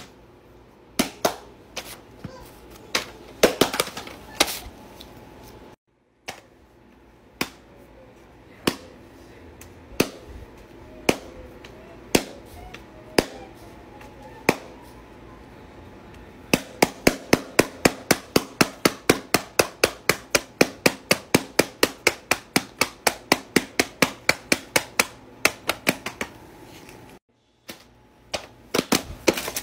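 Silicone pop-it fidget toy bubbles being pressed, each giving a sharp pop. They come about once a second at first, then in a fast run of about four a second for some ten seconds.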